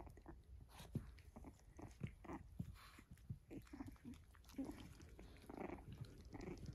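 Cavalier King Charles Spaniel mother and puppies play-wrestling: quiet mouthing and jaw snaps, with a few short dog vocal sounds scattered through.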